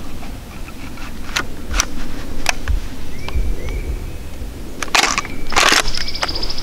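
Close rustling and crunching, loudest in two bursts about five and six seconds in, after a run of sharp clicks. Short rising bird chirps sound in the background.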